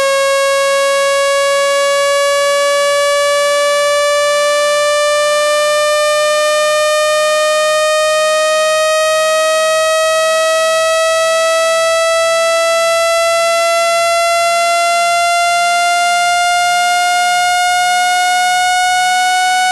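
Speaker-cleaning test tone: a steady, buzzy electronic tone gliding slowly upward in pitch, played loud to vibrate water and dust out of a phone speaker.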